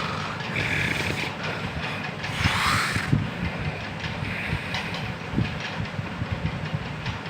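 A person snoring, a rasping breath about every two seconds, over a steady low rumble with irregular clicking.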